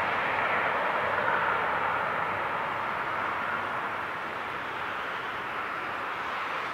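Dash 8 turboprop airliner's engines and propellers running as it rolls down the runway, a steady rushing drone that slowly fades as the aircraft moves away.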